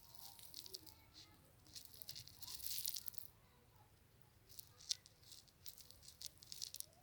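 Dry rustling and crackling in irregular bursts, the loudest stretch about two to three seconds in and a sharp click near the five-second mark.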